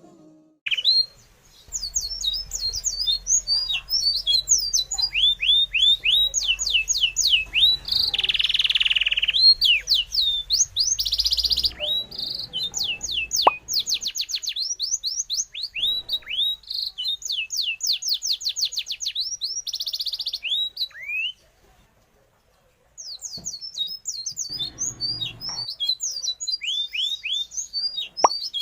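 Small birds chirping rapidly, many quick downward-sweeping calls overlapping, over a faint low hum in the first half. The chirping breaks off for about a second and a half past the middle, then starts again.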